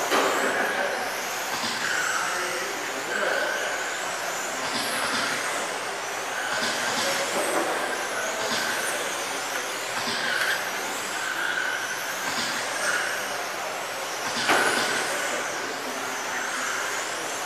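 Several 1/10-scale USGT electric touring cars with 21.5-turn brushless motors racing, their motors whining up and down in pitch as they speed up and slow for the corners. A sharp knock comes near the end.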